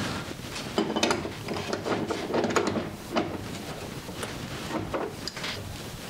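Brass caps being threaded back onto the air handler's refrigerant service valves and snugged with an adjustable wrench: irregular small metal clicks, clinks and scraping, busiest in the first half.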